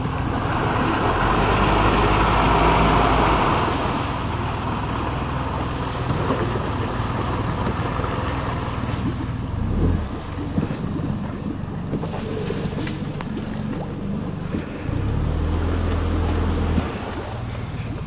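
Wind rumbling on a camcorder microphone over a steady rushing noise, loudest in the first few seconds, with the low rumble dropping out and coming back.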